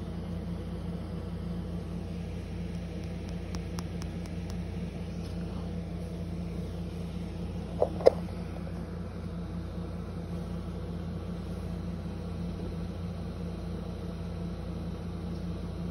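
A steady low mechanical hum, with two sharp clicks close together about halfway through.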